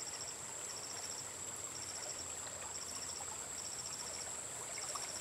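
Insects chirping: short trills of rapid high pulses, about one trill a second, over a steady high-pitched whine and the faint flow of river water.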